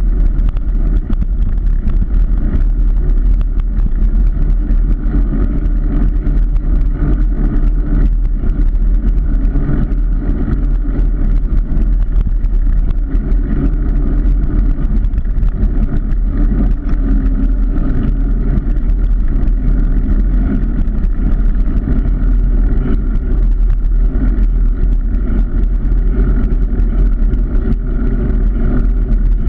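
Steady engine and road rumble of a car driving along, with no sudden changes.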